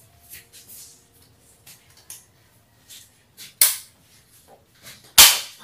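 Circuit breakers being handled in a breaker panel: light plastic clicks and rustling, then two loud sharp snaps about a second and a half apart, the second one near the end.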